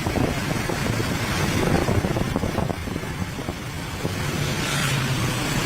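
Road vehicle engine running, with a steady rumble of road and traffic noise.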